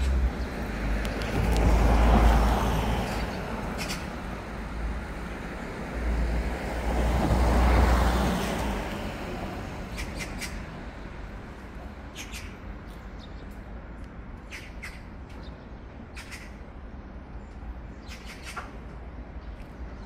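Street traffic: two vehicles pass, each a swell of engine and tyre noise with low rumble that builds and fades over a few seconds. After them comes a steady, quieter background broken by several short, sharp high sounds.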